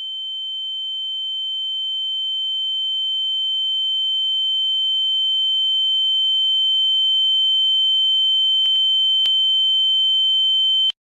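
A steady high-pitched electronic tone, like a sine-wave beep, swelling slowly louder. Two faint clicks come near the end, then it cuts off suddenly.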